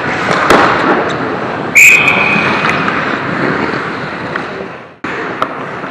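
Ice hockey referee's whistle blown once, a short single-pitch blast about two seconds in, stopping play. Before it, skate blades scrape the ice and a sharp clack of stick or puck sounds about half a second in.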